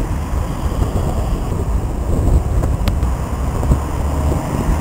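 Wind buffeting the microphone during a thunderstorm: a steady, gusty low rumble.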